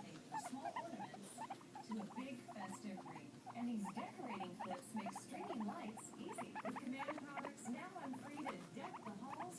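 Guinea pigs squeaking: a rapid, continuous run of short rising squeaks, several a second, over lower warbling calls.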